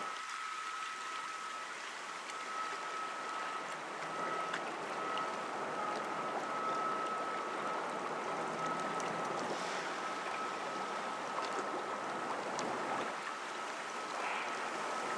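Steady rush of river water and wind, with a thin, steady high tone that drops out now and then.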